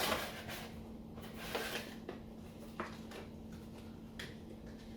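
Plastic toy pieces and their packaging being handled and packed back into a cardboard box: rustling for the first couple of seconds, then a few light clicks and taps.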